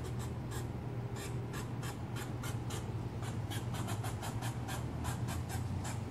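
Gray squirrel giving its alarm call: a long, even series of short, sharp clicking 'kuk' notes, about four a second and a little faster after the middle, over a steady low hum.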